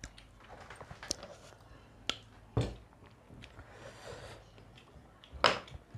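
Close-miked eating sounds: mouth smacks and chewing while eating with the hands, broken by short sharp clicks and knocks, the loudest about two and a half and five and a half seconds in.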